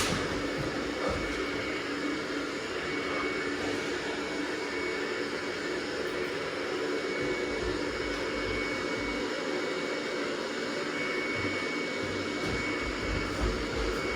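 Robot vacuum cleaner running: a steady whirring hum with a constant high whine.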